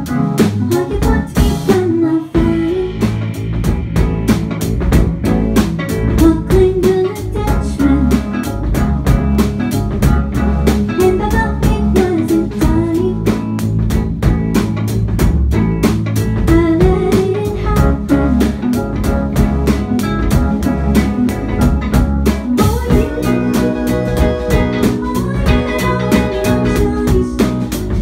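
Live indie-pop band playing a song: electric guitar over a steady drum-kit beat, with bass and keyboards.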